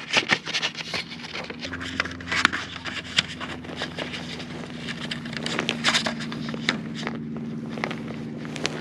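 An engine running steadily, its hum deepening about two seconds in, under a string of crunching and scraping steps on snow and ice.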